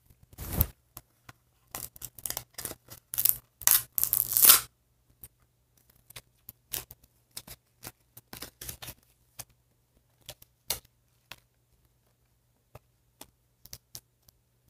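Toy packaging and a paper collector's guide being handled and opened out: a dense run of crinkles, crackles and tearing-like rustles for the first four or five seconds, then scattered light clicks and rustles.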